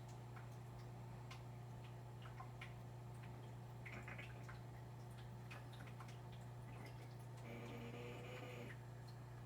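A turtle with a bad respiratory infection gasping: faint scattered clicks, a short hiss about four seconds in, and a longer wheezy, pitched breath near the end, over a steady low electrical hum.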